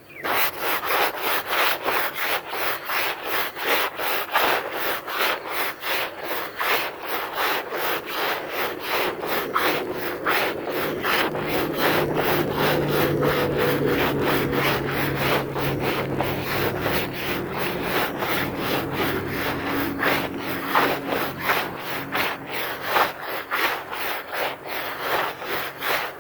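A carpet being scrubbed during washing, with quick repeated rubbing strokes, about two to three a second.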